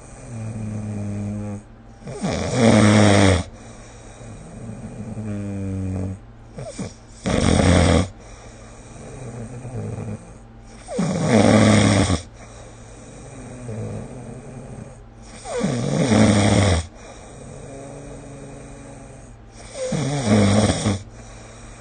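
Snoring: five loud snores about four seconds apart, each lasting about a second, with quieter, even-toned breaths between them.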